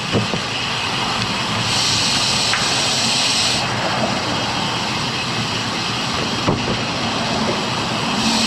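Steady rushing wind and tyre noise from a road bicycle rolling along a concrete path, heard from a camera mounted on the bike, with a brighter hiss from about two to three and a half seconds in.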